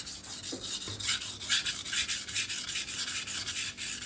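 Steel knife edge scraping back and forth across the 400-grit side of a vitrified diamond whetstone in quick, even strokes, about three or four a second. This is the coarse sharpening pass, which raises a burr along the edge.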